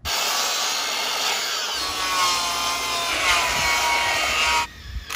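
Makita sliding compound miter saw running and cutting through a cedar board: a loud, steady whine whose pitch sags a little under load near the end. It cuts off suddenly about four and a half seconds in.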